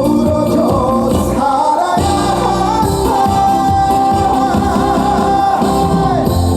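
Live singing of a Korean trot song over a full band backing, the voice holding one long note from about halfway through.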